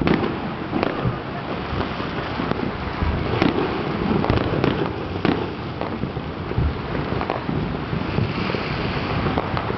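Many fireworks going off at once across a city: a dense, continuous crackle with a sharp bang or pop every second or so.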